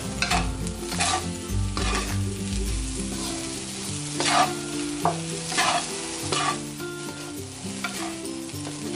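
Fried rice being stir-fried in a wok: a wooden spatula stirs and scrapes the rice against the pan, with irregular scrapes over a steady sizzle.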